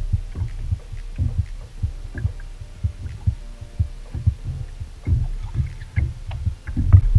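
Irregular low knocks and thumps on a small fibreglass boat's hull, several a second, with faint light ticks above them.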